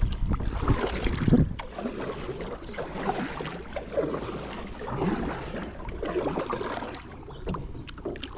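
Water splashing and lapping against a kayak, with irregular bumps and handling knocks that are loudest in the first second and a half.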